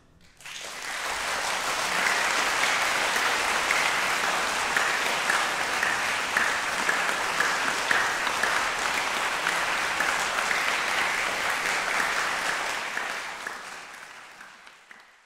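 Audience applauding. The applause begins about half a second in, holds steady, then dies away over the last couple of seconds.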